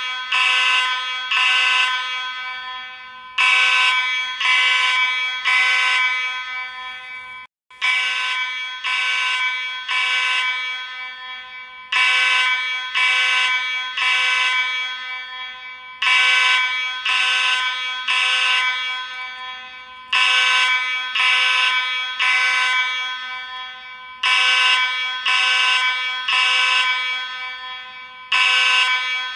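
Space Age AV32 fire alarm horn sounding in the temporal-three evacuation pattern: loud, buzzy blasts of about half a second in groups of three, a new group about every four seconds. About seven and a half seconds in there is a split-second drop-out.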